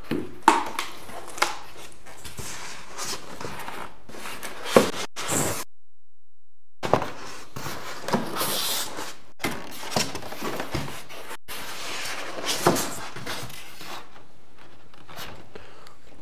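Handling and knocking noises from a large cardboard TV box and its packaging being worked open: scattered knocks, bumps and rustles. There is a second of dead silence about six seconds in.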